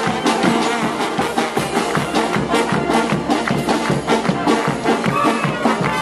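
Street brass band playing live: trombones and trumpets with clarinet, over a steady beat of drums and hand cymbals.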